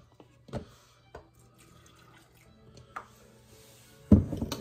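Kitchen clatter while canning jars are being filled: a few separate knocks and clinks, with the loudest cluster near the end, over a low steady hum.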